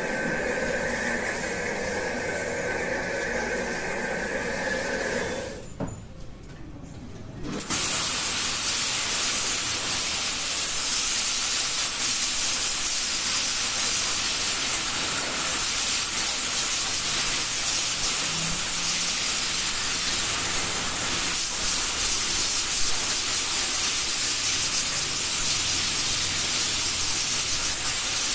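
Water spraying with a steady hiss. It drops away about six seconds in and comes back louder two seconds later.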